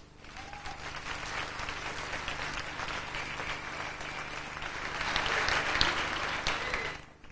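Audience applauding at the end of a gymnastics floor routine, swelling about five seconds in and dying away near the end.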